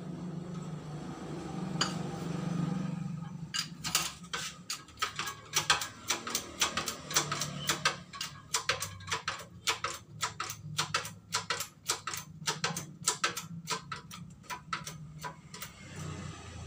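Quick, irregular metallic clicks, several a second, from about three seconds in, as a hand works the top of a hydraulic bottle-jack press; a low steady hum runs underneath.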